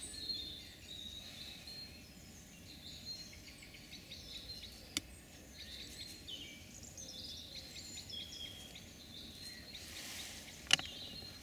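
Woodland birdsong: several small birds chirping and warbling over a quiet background. A sharp click sounds about halfway through and a louder one near the end.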